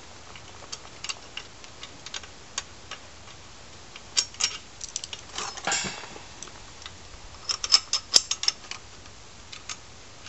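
Small metal clicks and ticks from a hand tool working the screw that holds a pet stroller's front wheel on, coming in irregular clusters, with a brief scrape about six seconds in and the densest run of clicks near the end.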